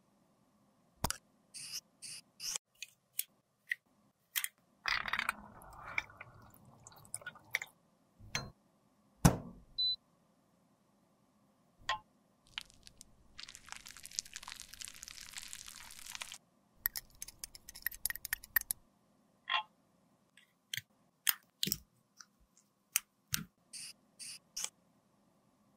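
Close-miked handling sounds of small cosmetic containers: a string of separate clicks, taps and scrapes from a glass beaker and a plastic lipstick tube being handled and set down. A steady hiss runs for about three seconds midway.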